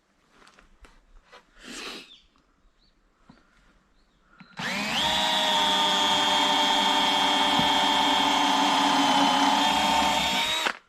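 Electric drill motor spinning up about halfway in, running at a steady speed for about six seconds and then stopping. Before it come a few faint handling noises.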